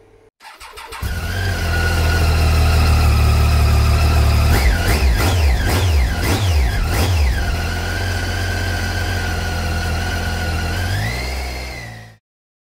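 Motorcycle engine idling, revved in four or five quick blips a few seconds in, then settling back to a steady idle. It rises once more near the end and cuts off suddenly.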